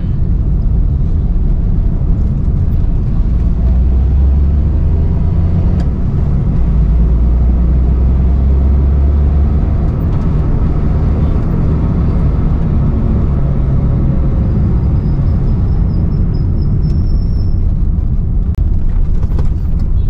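Suzuki Mehran's small three-cylinder engine and road noise heard from inside the cabin while driving: a steady low drone whose pitch shifts with speed.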